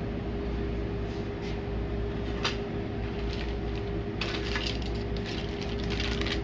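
Plastic model-kit parts and their packaging being handled: a couple of light clicks, then from about four seconds in a dense crinkling, clicking rattle as the sprue trees are moved.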